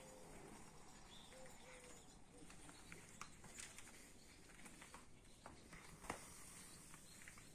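Near silence: faint outdoor ambience with a few soft clicks scattered through it.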